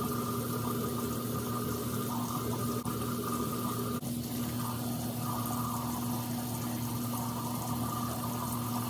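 Bathroom sink tap running steadily into the basin while a face is washed.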